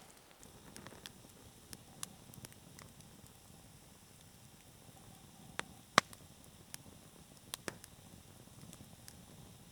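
Wood campfire crackling: irregular sharp pops over a faint hiss, the loudest pop about six seconds in.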